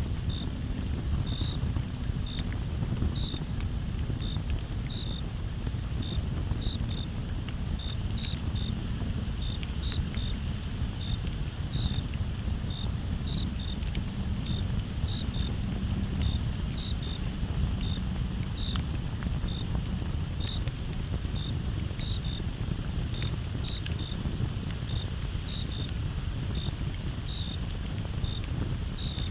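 Campfire crackling with scattered sharp pops over a low, steady rumble of burning wood. Crickets chirp in short, irregular notes against a steady high insect trill.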